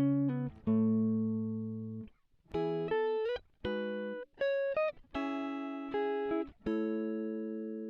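Background music: a plucked guitar playing a slow run of single notes and chords, each ringing out and fading, with a couple of short slides in pitch.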